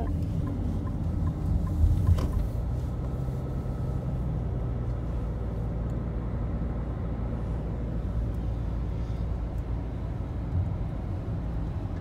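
Steady low rumble of a car's engine and tyres on the road, heard from inside the cabin, with a brief bump about two seconds in.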